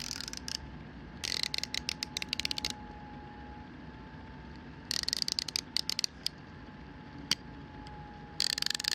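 SabreCut 72-tooth mini micro ratchet wrench clicking as its handle is swung back and forth: four quick runs of fine, rapid clicks with short pauses between.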